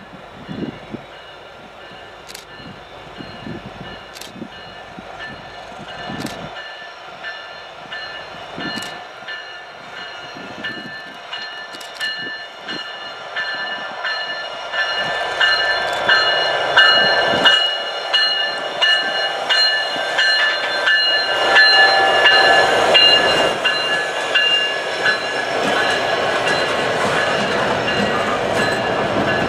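A freight train led by a Canadian Pacific EMD SD70ACu diesel locomotive approaches and passes, growing steadily louder and loudest from about halfway through. The hopper cars and boxcars behind it roll past with a steady rumble and high, thin squealing tones from the wheels.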